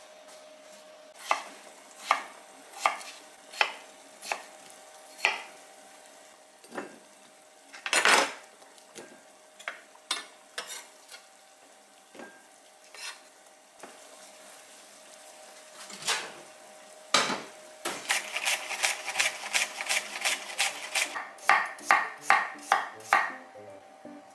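Kitchen knife cutting boiled potatoes on a wooden cutting board: single knocks about a second apart, with a few heavier knocks and scrapes. Near the end comes a quick run of slicing strokes as cucumber is cut into thin rounds.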